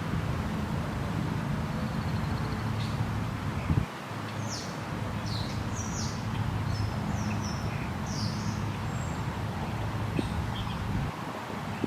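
Small birds chirping, short high calls clustered through the middle and a couple more near the end, over a steady low rushing noise.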